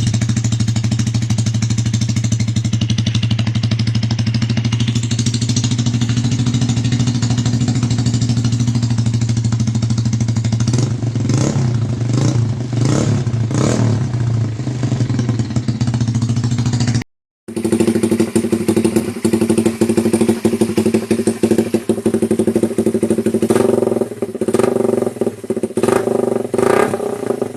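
Motorcycle with an aftermarket Daeng/Cha/Apido replica exhaust pipe idling steadily, then given a series of quick throttle blips. The sound cuts out briefly about two-thirds of the way in, and the engine comes back at a higher-pitched idle with more blips near the end.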